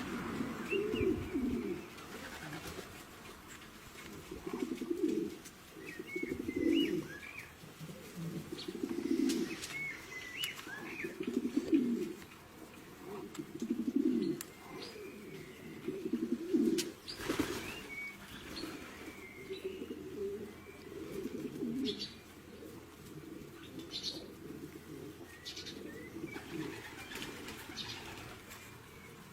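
Domestic pigeons cooing over and over, a low coo every one to two seconds, with scattered higher chirps from other birds.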